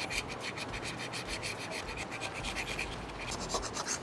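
Carbide scraper blade scraping old gasket residue and rust off a cylinder head's intake-side gasket surface in quick, repeated strokes, cleaning it down to a smooth face for the new gaskets to seat against.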